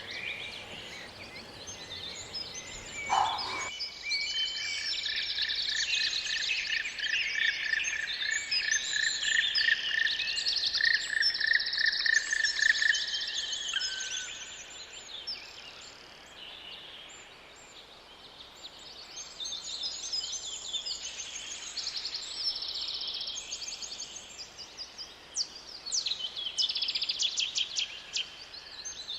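Several songbirds singing together, a busy mix of chirps and trills, with one bird repeating the same note in a steady run for several seconds in the first half.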